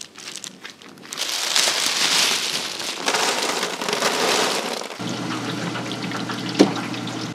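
Oil sizzling in a deep fryer, a crackling rain-like hiss, broken by cuts into a few short stretches. From about five seconds in a steady low hum runs under it, with one sharp click near the end.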